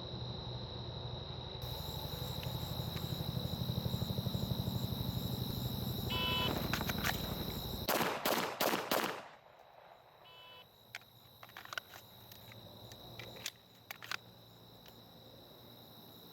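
A shot timer beeps, and about two seconds later a handgun fires four quick shots within about a second. A second timer beep follows some two seconds after the last shot, marking the 4-second par time. A low pulsing rumble sits under the first half and stops as the shots are fired.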